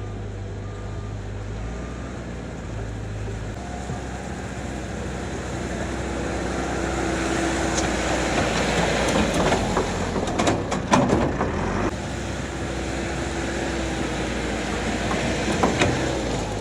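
Backhoe's diesel engine working, with a reversing beeper sounding briefly at the start. The engine speeds up through the middle, and a cluster of sharp metallic clanks comes about two-thirds of the way through.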